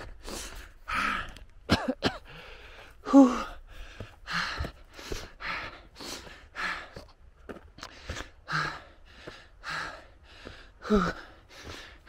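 A runner breathing hard and fast, about two loud breaths a second, out of breath from a steep uphill run at high altitude; a few breaths carry a short voiced groan.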